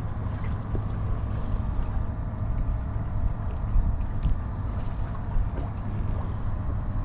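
Wind rumbling on a GoPro action camera's microphone aboard a small boat at sea, a steady low buffeting with a faint hum underneath.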